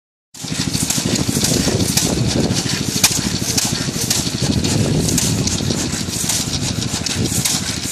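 Open-flywheel engine of an antique Jacobson friction-drive tractor running steadily, a rapid, even pulsing beat with mechanical clatter and one sharp click about three seconds in.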